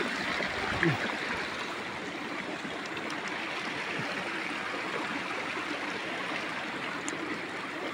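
Steady rushing of flowing stream water, with a brief falling sound about a second in.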